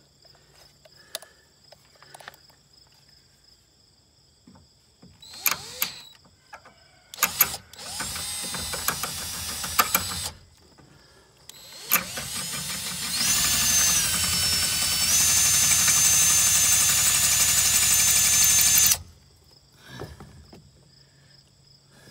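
Cordless drill running in bursts as a bit is pressed into a hard steel shaft that it will not cut. A run of a couple of seconds comes about eight seconds in, then a longer, louder run from about twelve seconds to nineteen, its whine stepping up in pitch twice as the trigger is squeezed harder.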